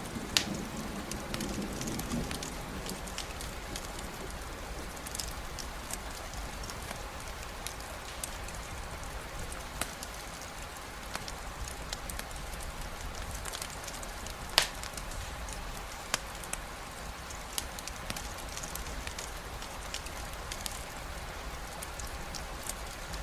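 Steady rain with a campfire crackling, its sharp pops scattered irregularly, one louder pop about halfway through. A low thunder rumble dies away in the first couple of seconds.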